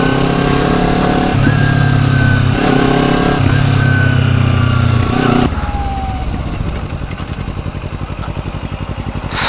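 Kawasaki Ninja 250 parallel-twin engine running steadily under way, with wind noise on the microphone. About five and a half seconds in the throttle closes and the engine drops to a quieter, low pulsing as the bike slows toward an intersection; a brief loud rush of noise comes near the end.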